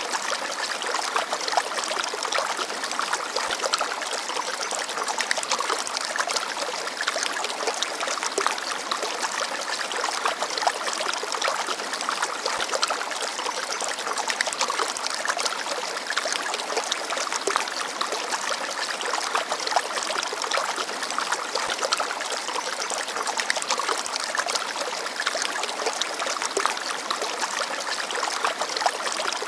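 Small forest stream babbling and trickling over stones, a steady splashing with many fine bubbling flecks and little low rumble.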